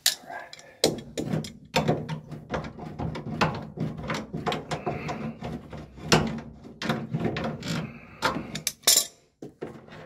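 Hand tools clicking and knocking on metal at the drive motor of a stackable washing machine as it is being refitted. Many sharp clicks come in a quick, irregular series.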